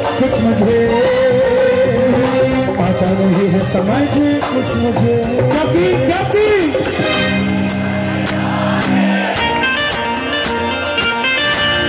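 Live kirtan devotional music: a singer's wavering melody over a steady beat of crowd hand claps and percussion, with held instrument notes taking over about seven seconds in.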